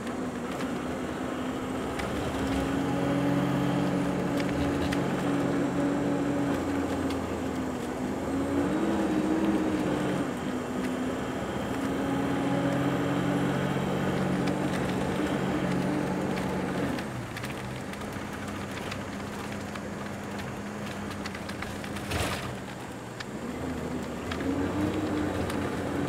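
Engine and drivetrain of a moving road vehicle, heard from inside the cabin as a steady pitched drone. Its pitch bends up and back down twice as the speed changes, it drops lower for a few seconds late on, and there is one sharp click near the end.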